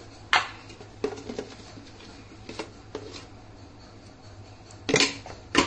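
A few light clinks and taps of a steel spoon against a steel pot while ghee is spooned in, with a quicker, louder cluster of clinks near the end. A steady low hum runs underneath.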